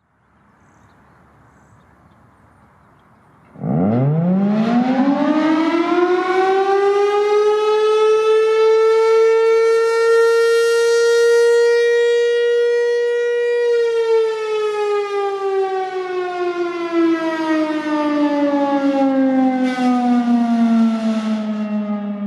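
Federal Signal Thunderbolt 1000 siren starting up about four seconds in: its tone sweeps up quickly, holds steady at full pitch, then winds down in a long, slowly falling wail.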